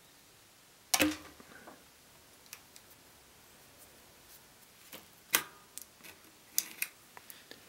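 A few separate sharp clicks and knocks from tools and parts being handled during bike work. The loudest comes about a second in, another in the middle, and a small cluster near the end, with faint ticks between.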